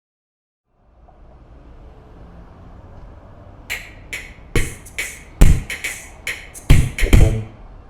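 A dozen or so irregular sharp knocks and taps, several with a deep thump, starting about three and a half seconds in, over a low steady background rumble.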